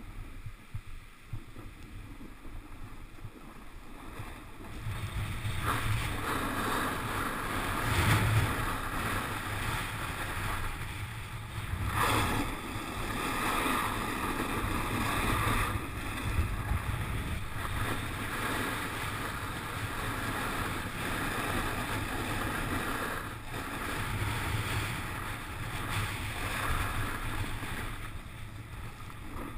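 A snowboard sliding over packed, chopped-up snow makes a rushing scrape, mixed with wind on the camera microphone. The sound grows louder about five seconds in and has several louder surges of scraping.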